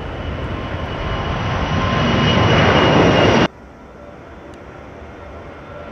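A Boeing 747 freighter's four jet engines at takeoff power as it climbs out low overhead, a loud noise with a steady high whine, growing louder. About three and a half seconds in the sound cuts abruptly to the quieter, steady engine noise of an Airbus A340 climbing out.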